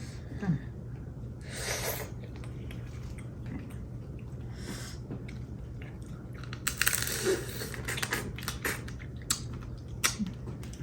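Seafood being eaten close to the microphone: chewing, crunching and cracking of shells, with scattered sharp clicks and a denser burst of crackling about seven seconds in, over a steady low hum.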